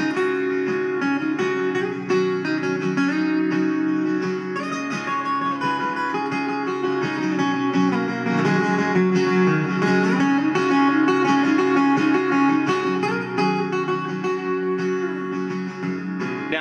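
Acoustic guitar music playing from a CD through the speakers of a Philips AZ797T portable boombox, with no bass instrument in the track. The volume gets somewhat louder about halfway through as the front knob is turned.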